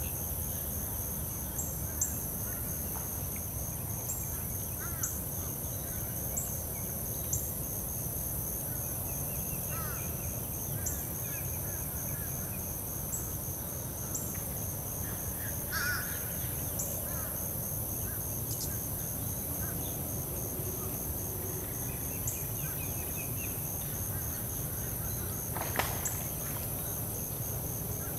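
Marsh ambience: a steady high-pitched insect drone with a faint regular ticking, scattered distant bird calls, and two louder brief bird calls, about halfway and near the end.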